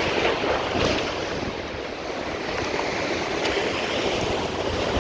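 Rough ocean surf washing in, with wind buffeting the microphone.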